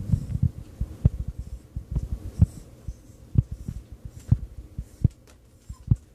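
Irregular dull, low thumps and knocks, several close together at first, then about one a second.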